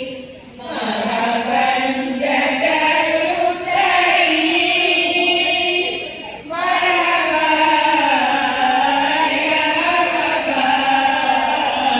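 A women's marhaban group chanting Arabic praise verses in unison, unaccompanied, in long melodic lines. There are brief breaks for breath just after the start and about six and a half seconds in.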